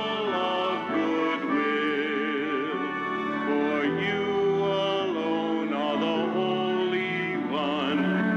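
A male cantor singing a sung part of the Mass, holding notes with vibrato, over sustained instrumental accompaniment.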